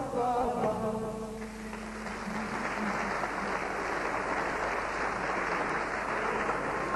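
A man's sung line with instrumental backing ends about a second in, and an audience breaks into steady applause that runs on to the end.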